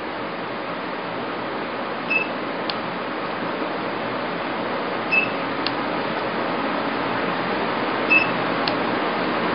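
The E-light (IPL + RF) hair-removal machine's fan runs steadily. Three times, about every three seconds, a short high beep is followed about half a second later by a click as the handpiece fires a pulse.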